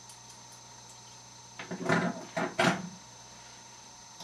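Steel handcuffs being handled: a short cluster of knocks and rattles about two seconds in, the loudest two a little over half a second apart.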